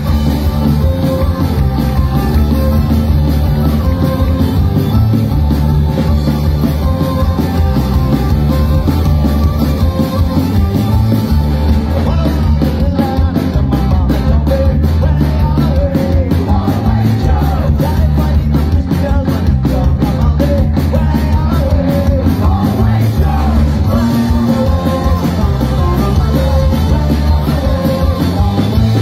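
Live folk-punk band playing loudly: accordion, bass guitar and drum kit, with a voice singing over the band.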